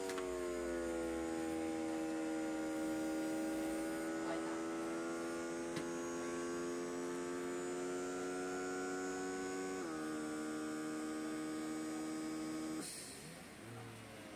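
Small air pump in the control unit of a pneumatic hand-rehabilitation glove, running with a steady hum as it inflates the finger bellows to close the hand into a fist. Its pitch sinks briefly as it starts, drops a step about ten seconds in, and the pump cuts off suddenly near the end.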